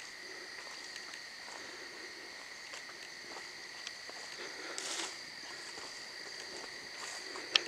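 A steady chorus of night insects trilling at two constant high pitches, with a few faint clicks and a brief rustle about five seconds in.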